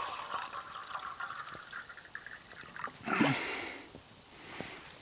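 Water trickling and pouring into an open-topped aluminum beer can as it is filled. About three seconds in there is a brief, louder low vocal sound.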